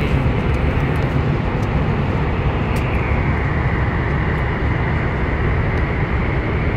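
Steady airliner cabin noise in flight: the deep, even rumble of engines and airflow through the fuselage, with a softer hiss above it.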